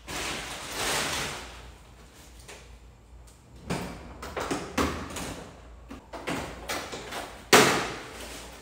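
A large plastic bag rustling for about a second and a half, then an aluminium hard-shell suitcase handled on a tile floor: a run of knocks and latch clicks as it is tipped over and opened, and a loud clatter near the end as it comes down on the tiles.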